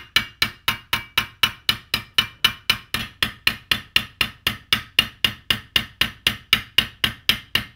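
Cross peen hammer peening the edge of a steel Austrian scythe blade on an anvil: light, evenly paced ringing taps, about four or five a second, drawing the steel of the edge out thin.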